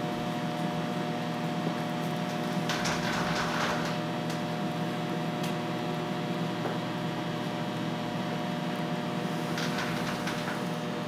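Microwave oven running with a steady hum made of several fixed tones. Two brief noisy rustles come through it, one about three seconds in and one near the end.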